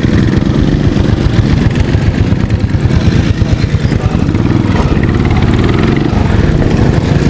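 Motorcycle engine running close to the microphone at low, uneven revs, with throttle changes as the bike manoeuvres slowly on grass.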